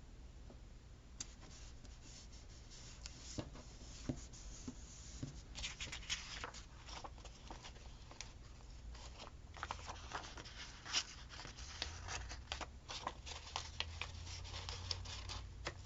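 Thin paper stickers and sticker sheets being handled on a planner: scattered light rustles, taps and scratches, sparse at first and busier from about six seconds in.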